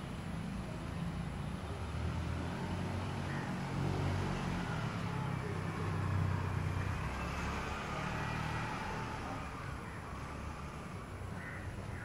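A motor vehicle's engine running with a steady low hum that swells a little around the middle, with crows cawing faintly.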